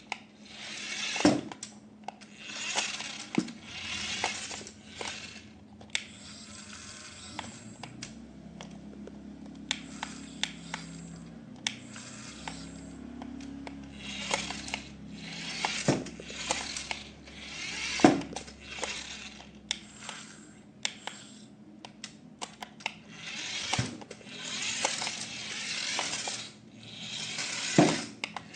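Plastic toys and their packaging being handled: repeated rustling swishes and sharp plastic clicks and taps, with a low steady hum in the middle stretch.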